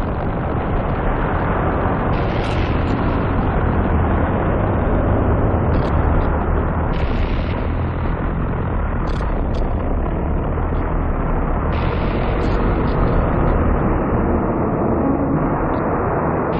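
Designed sci-fi 'spacequake' sound effect: a continuous heavy rumble with deep low end, shot through with brief crackling bursts every few seconds.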